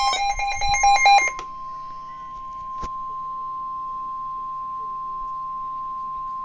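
NOAA Weather Radio warning alarm tone: a loud, steady single tone of about 1 kHz that announces a warning broadcast. For the first second or so a rapid warbling of higher tones sounds over it, and a single click comes near three seconds.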